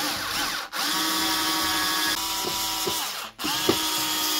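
Cordless drill-driver driving a housing screw, its motor running in three spells that each rise in pitch as it spins up, with short stops about three-quarters of a second in and again past three seconds.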